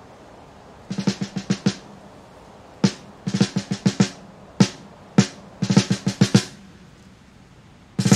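Unaccompanied drumming: a snare drum playing short groups of rapid strokes separated by pauses of about a second. Fuller music comes in right at the end.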